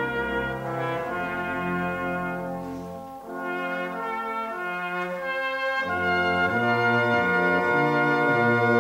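A brass band playing held chords. The low brass drops out about three seconds in and comes back near six seconds, and the band grows louder toward the end.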